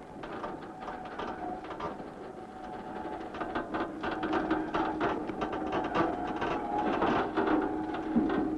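Construction-site machinery clattering and knocking, with a steady motor hum beneath that grows a little louder about three seconds in.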